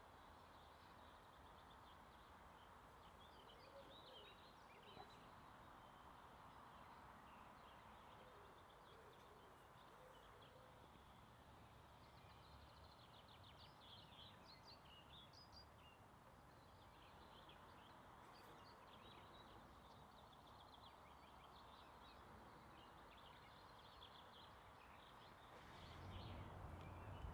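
Faint outdoor ambience: small birds chirping and twittering over a steady background hiss. A low rumble comes up near the end.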